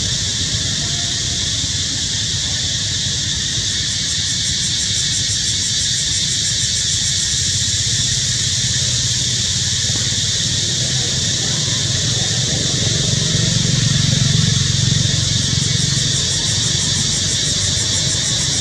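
A steady, high-pitched insect drone, with a low engine rumble of passing traffic underneath that swells about two thirds of the way through.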